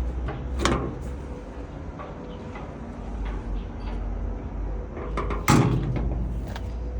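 Metal doors or access panels on a Caterpillar 325D2L excavator being opened and shut: two clunks, a smaller one under a second in and a louder, sharper one near the end, with lighter clicks and rattles between. A steady low rumble runs underneath.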